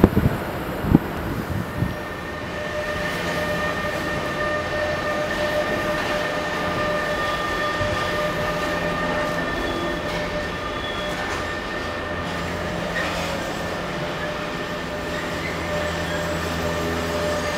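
Container freight train hauled by a BLS electric locomotive running past: a steady rumble of wheels and wagons with a steady high whine over it. There are a few sharp knocks in the first two seconds.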